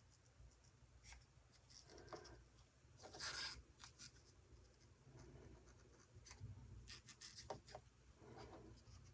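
Faint scratching and rubbing handling noises, with a few light clicks, as acrylic paint bottles and small cups are handled for layering colours; a brief louder rustle comes about three seconds in.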